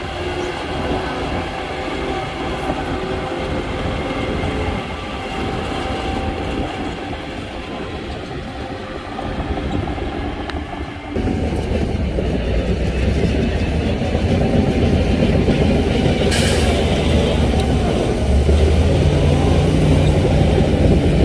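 Heavy diesel construction machinery running, with a steady rumble and clatter that steps up suddenly to a louder, heavier sound about halfway through. A brief sharp noise comes a few seconds later.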